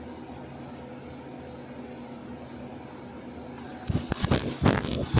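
A steady low hum, then about four seconds in an electric welding arc strikes and crackles loudly and irregularly as a bead is laid.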